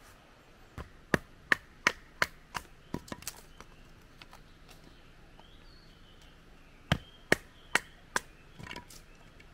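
Firewood being split into kindling by hand: a run of about eight sharp, woody chopping strikes at roughly three a second, a pause, then four more near the end.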